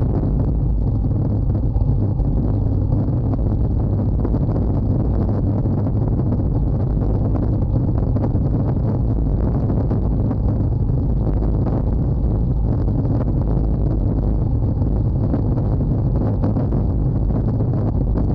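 Steady, loud wind rumble on the microphone of a bicycle-mounted camera, with the rush of the ride, during a fast road descent at about 65–70 km/h.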